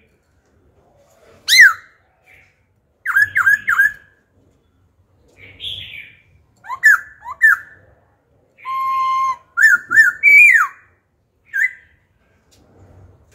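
A caged black-throated laughingthrush singing: loud, varied whistled phrases with short pauses between them. It gives a sharp down-slurred whistle, a quick run of three notes, slurred notes, a held steady whistle, and rising and falling notes.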